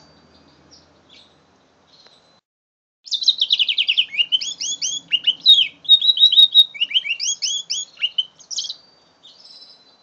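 Five-month-old mule canary singing: a few soft chirps, then from about three seconds in a loud run of song lasting about six seconds, made of fast trills and repeated downward-sweeping notes.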